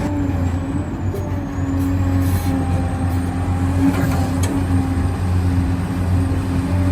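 1:14 scale HUINA RC construction machinery running: a steady, even hum with several fixed tones from its motors and drive, and a couple of light clicks.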